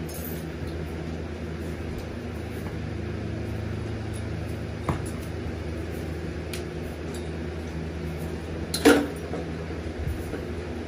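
A steady low hum, broken by a faint click about five seconds in and a sharp metallic clank with a short ring near the end as the cross-tied horse shifts.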